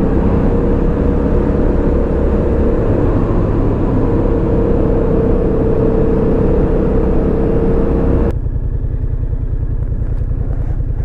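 Yamaha FZ-07's parallel-twin engine running under way with heavy wind noise. About eight seconds in the wind noise cuts off abruptly and the engine carries on as a low, even pulsing.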